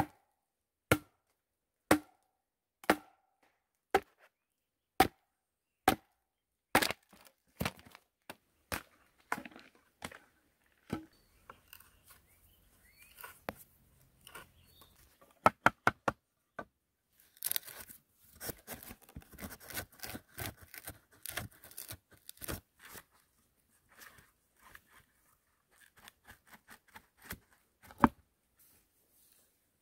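Hand-tool woodworking: sharp wooden knocks about once a second for several seconds, then irregular taps and scraping, a quick run of strikes, and one loud knock near the end, as a hammer drives a blade into a split board.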